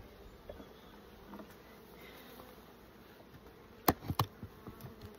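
Honeybees buzzing faintly around a hive, with a couple of sharp knocks about four seconds in.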